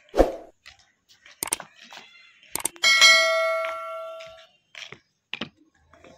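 A metal temple bell struck once, ringing with several overtones and fading over about a second and a half. Before it come a low thump near the start and a few sharp clacks.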